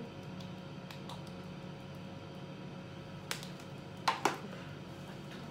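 Quiet room with a steady low hum, broken by a few small clacks of makeup items being handled: one about three seconds in, then two close together a second later.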